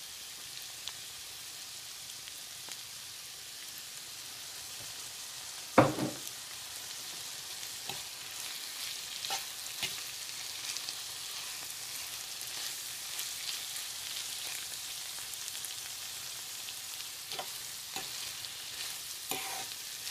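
Spaghetti with crab sticks, peas and carrot sizzling steadily in a frying pan while it is stirred and tossed with a metal fork, with small clicks and scrapes of the fork on the pan. One sharp, louder knock about six seconds in.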